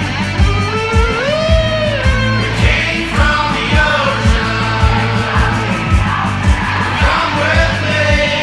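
Rock band playing: electric guitar, bass and drums keep a steady beat of about two drum hits a second under a voice singing, with some yelling.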